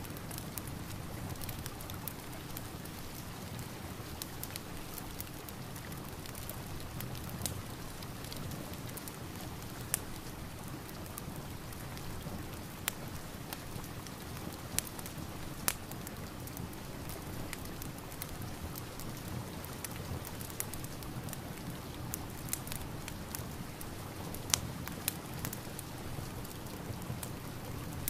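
Steady rain together with a crackling fireplace: an even hiss of rain with sharp pops and snaps of burning wood scattered through it.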